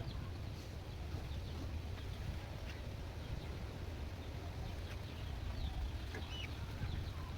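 Scattered faint bird chirps over a steady low rumble of background noise.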